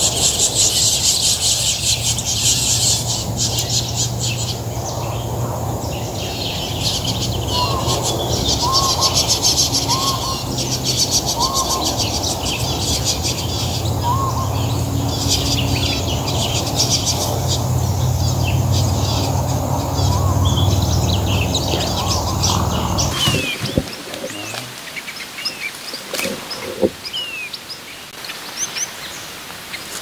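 A flock of long-tailed finches chirping densely over a steady low rumble, with a few short up-slurred call notes among the chirps. About 23 seconds in, the sound cuts to a quieter stretch with scattered chirps.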